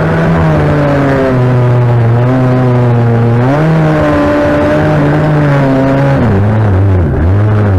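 A small engine revs up and runs hard, its pitch stepping up and down, then rising and falling repeatedly near the end.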